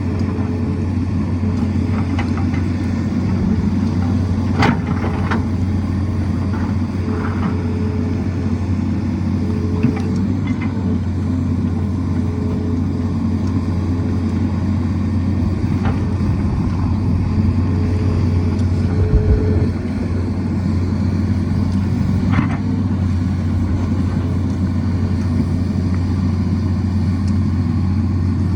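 Tata Hitachi excavator's diesel engine running steadily at working revs, with a few sharp knocks of the bucket striking rock.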